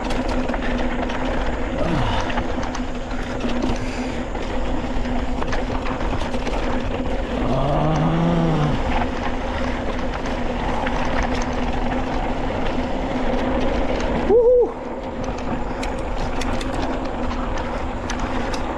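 Mountain bike descending a dirt downhill trail: steady rush of wind and tyre noise with the rattle of the bike, over a steady hum. A brief rising-and-falling tone sounds near the middle, and another, louder and shorter, about three-quarters in.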